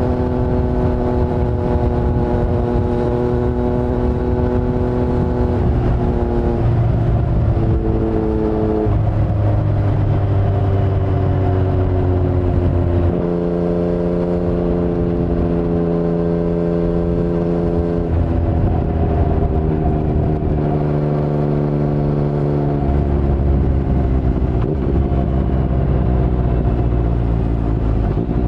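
2019 Yamaha MT-09's 847 cc inline-three engine running through an Akrapovic carbon full-system exhaust with no dB killer, under way on the road. Its note jumps abruptly in pitch several times with gear changes and holds steady or sags slowly in between.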